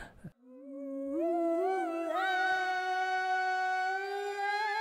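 Recorded solo vocal singing slow, long held notes that step up and down in pitch, played back through BandLab's Multi Shifter pitch-shift effect with an octave-up voice layered over the dry voice. It starts about half a second in.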